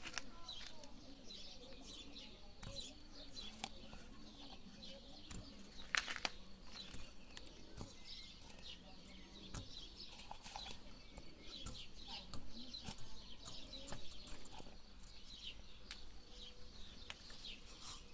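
Quiet outdoor background with birds calling and a few small clicks and knocks from hands handling candy at a motorcycle exhaust tip; the sharpest click comes about six seconds in.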